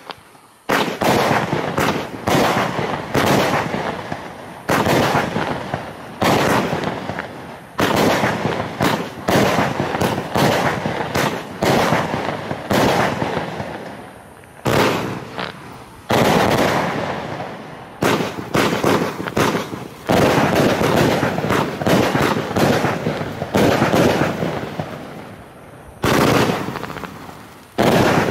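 Argento Sakkara 40-shot 20 mm fireworks cake firing: a steady string of shots roughly a second apart, each launch followed by a burst and fizzing, crackling stars. In the last third the shots come closer together, fired in fans, with denser crackling.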